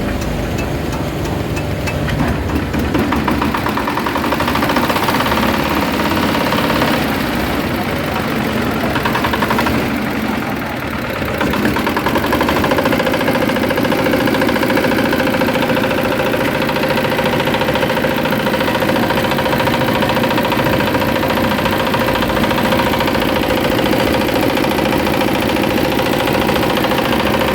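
Small single-cylinder hopper-cooled diesel engine running steadily, with a brief dip in level about ten seconds in.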